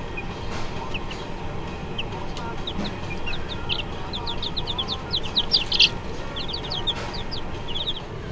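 Baby chicks peeping: many short, high chirps that come thick and fast around the middle, over a steady low rumble.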